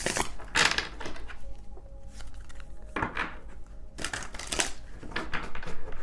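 Tarot cards being shuffled and handled, in several short bursts of riffling and flicking.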